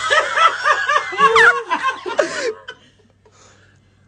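Laughter in a quick run of short 'ha-ha' bursts that stops about two and a half seconds in.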